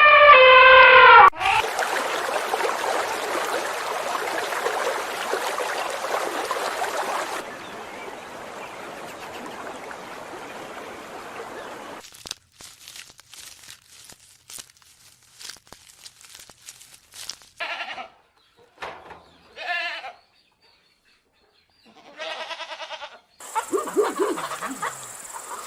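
A string of short animal calls like bleats, each a brief stack of tones, several in a row later on. They follow a long stretch of steady noise and scattered clicks.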